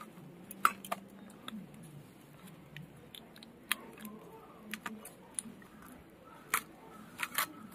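A rohu fish being scaled against an upright boti blade: irregular sharp scraping clicks as the scales are rasped off, a stroke every half second or so.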